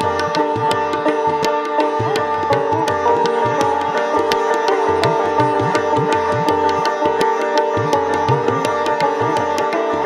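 Sitar and tabla playing Hindustani classical music: fast plucked sitar strokes over steady ringing strings, with tabla strokes and low bass strokes that bend in pitch.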